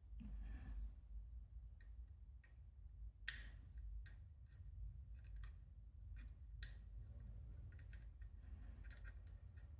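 Faint, scattered clicks and snips of small hand work on a telephone socket and its cable, with sharper clicks about a third and two-thirds of the way in, over a low steady hum.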